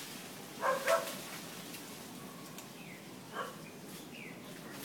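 An animal barking in short calls: two quick barks about a second in and one more about three and a half seconds in.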